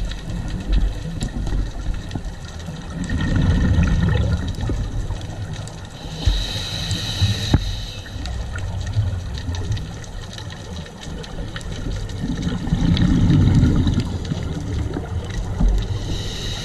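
Scuba diver breathing through a regulator, heard underwater: a hiss on each inhale, about six seconds in and again at the very end, alternating with a low bubbling rumble of exhaled bubbles about three seconds in and again about thirteen seconds in, in a slow cycle of roughly ten seconds.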